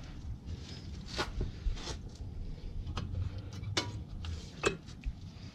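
New brake pads clinking into the caliper bracket against the rotor: a handful of sharp metal clicks and clinks, spread irregularly over a few seconds.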